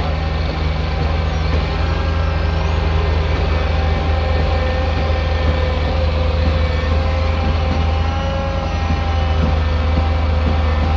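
Heavy diesel engine of road-works machinery running steadily at a constant speed, a deep continuous hum with a faint steady whine above it.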